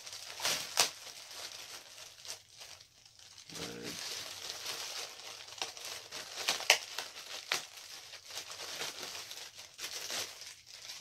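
Plastic packaging crinkling and rustling in the hands, with many sharp clicks and crackles, as a boxed collectible figure is unwrapped and its pieces are fitted together.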